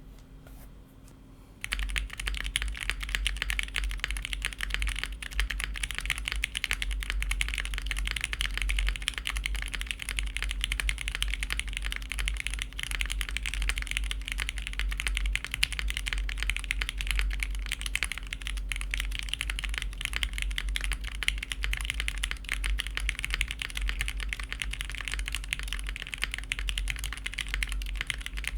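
Fast, continuous typing on a Spark67 mechanical keyboard fitted with GMK doubleshot ABS keycaps: a dense stream of keystroke clacks that starts about two seconds in.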